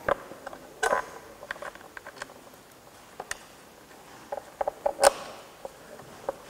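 Scattered metal clicks and knocks as a cylinder head cover is handled and seated onto an engine by hand. The sharpest knocks come near the start, about a second in and about five seconds in, with a run of small taps just before the last.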